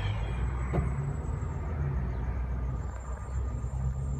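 Low, steady rumble of a running motor, with one sharp click just under a second in.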